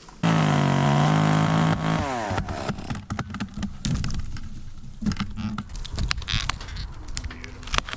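Chainsaw starting suddenly at high revs, running steady for about two seconds, then falling in pitch as the throttle drops back, followed by scattered knocks and rustling.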